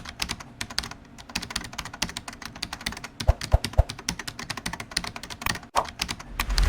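Rapid, irregular small clicks and rattles of hard plastic Lego Technic pieces being handled, with three dull thumps about halfway through.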